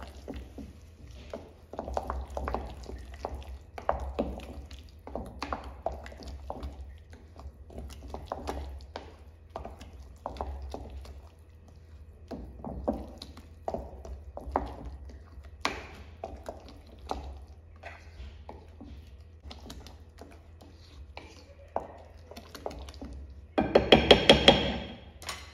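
Wooden spoon stirring a thick corn batter in a glass bowl: soft, irregular stirring strokes. Near the end, a quick run of loud knocks of the spoon ringing against the glass bowl.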